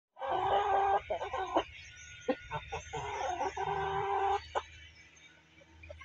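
Aseel chickens calling: two long held calls, each a second or more, with a run of short clucks between them.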